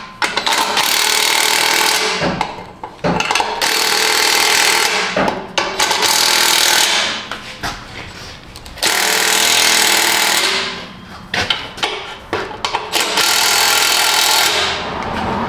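DeWalt cordless impact wrench hammering in repeated bursts of one to two seconds, with shorter choppier bursts near the end, as it runs down the nuts on an exhaust pipe clamp.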